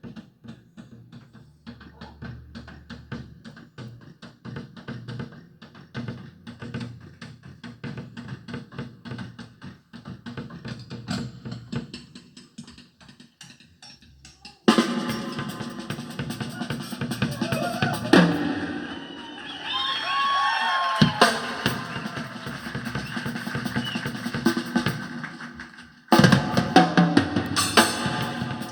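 Drum-kit music played back through a DIY 3-inch full-range loudspeaker driver: a quieter, sparse rhythmic passage, then about halfway through a sudden jump to louder, fuller music with a bending lead line, dipping briefly near the end before coming back loud.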